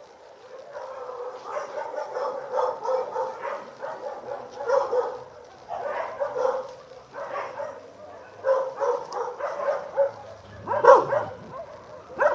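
Dogs barking and yipping in quick, repeated calls, with the loudest burst near the end.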